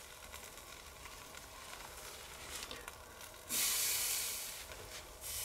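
Pork neck steaks and red peppers sizzling quietly on a charcoal grill grate. About three and a half seconds in, a strip of raw bacon is laid on the hot grate and the sizzle jumps to a loud hiss for about a second and a half, then eases off.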